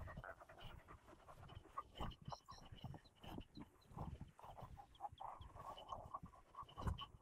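Dog panting quickly and faintly, with the soft thuds and rustle of footsteps on grass.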